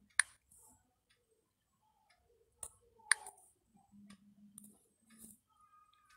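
A few scattered sharp clicks of taps on a smartphone's on-screen keyboard, spaced irregularly, the loudest near the start and about three seconds in.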